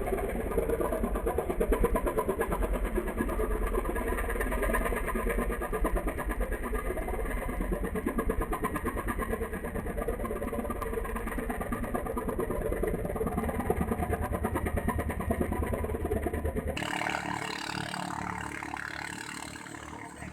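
Small katinting longtail boat engine running steadily at high revs, a fast, even rattle of firing pulses. About seventeen seconds in the sound changes abruptly to a quieter engine that fades away.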